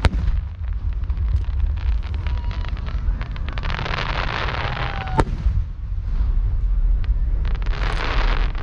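Aerial fireworks bursting: many sharp cracks and pops, a loud report about five seconds in, and hissing, crackling swells of bursting shells in between.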